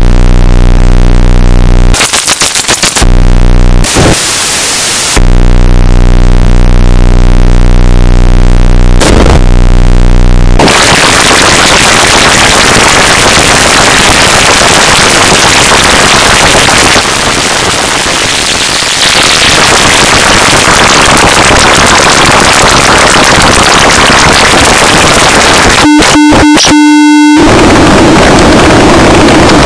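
A series of loud buzz sound effects. First comes a low, electric-sounding buzz with many overtones, cut by short bursts of hiss. From about ten seconds in a long harsh static-like noise takes over. Near the end there is a rapidly chopped, higher-pitched tonal buzz.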